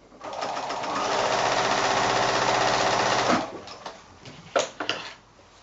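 Electric domestic sewing machine stitching a seam through layered quilting fabric. It builds up over the first second, runs steadily for about three seconds, then stops suddenly. A couple of sharp clicks follow near the end.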